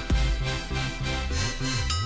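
Electronic background music with a beat and a stepping bass line; a synth sweep wobbles upward near the end.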